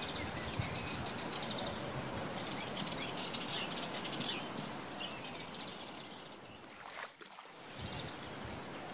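Small birds chirping and twittering over a steady outdoor background hiss, with a fast trill in the first two seconds and a single curved whistle about halfway. The sound dips briefly with a click near the end.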